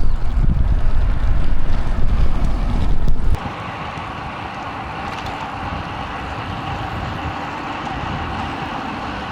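Wind buffeting the rider's clip-on microphone while cycling, a loud low rumble that cuts off suddenly about three seconds in. A steady, even hiss of riding noise follows.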